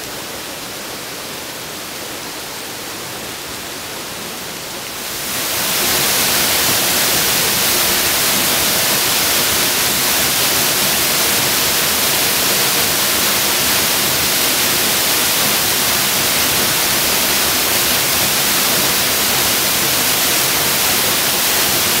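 Waterfall pouring through a hole in a rock bluff overhang and splashing onto the rocky pool below: a steady rushing hiss. It grows much louder about five seconds in and then holds steady.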